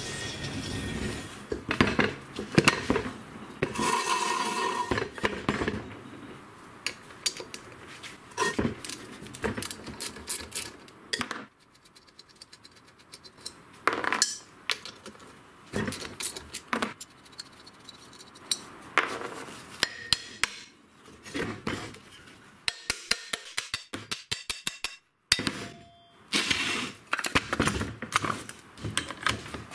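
Clanks, knocks and clinks of metal parts and hand tools handled on a wooden workbench as a rusty car drum-brake and hub assembly is set down and its brake drum taken off. About three-quarters of the way in there is a fast, even run of clicks.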